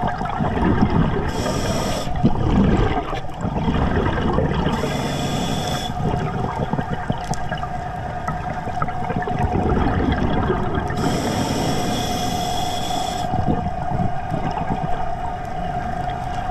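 Scuba diver breathing through an Atomic regulator, three breaths: a high hiss on each inhale, then bubbling rumbles of exhaled air between them. A steady whine sounds underneath.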